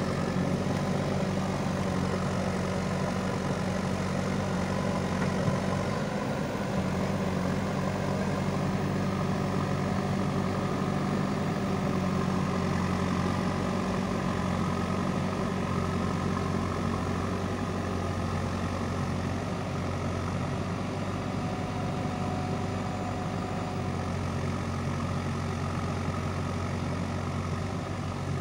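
JCB 3DX backhoe loader's four-cylinder diesel engine running steadily at low, even revs as the machine moves slowly along a dirt track.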